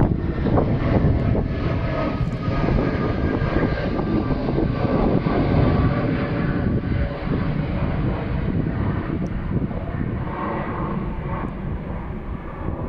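Qantas Boeing 787's Rolls-Royce Trent 1000 turbofans at climb power as the jet climbs out overhead after takeoff: a loud, steady jet rumble that slowly fades over the last few seconds as the aircraft moves away.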